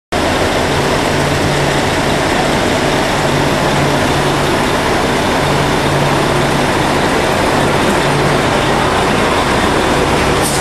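Steady engine rumble and noise of a double-decker long-distance coach idling close by, with a low hum that comes and goes.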